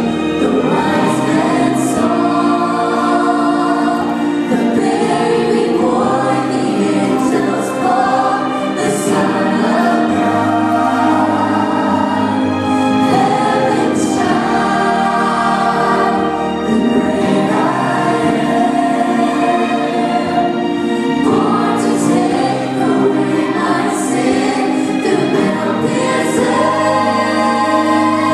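Church choir singing, with many voices together at a steady, full level.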